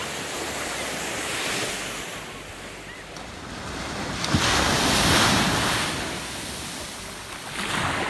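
Ocean surf washing up a sandy beach, with a louder wave breaking and rushing in from about four to six seconds in. Wind buffets the microphone.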